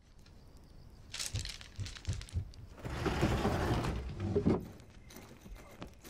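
Bamboo-slip scroll being handled: a few soft knocks, then a dry rattling rustle of the slats for about a second, starting about three seconds in.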